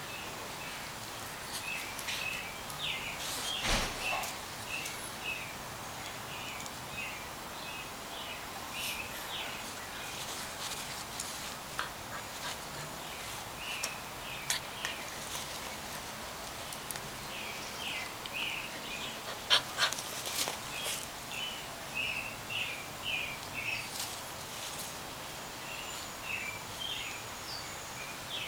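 Small birds chirping in short, repeated bursts in the background, with a few sharp clicks or knocks, the loudest about four seconds and twenty seconds in.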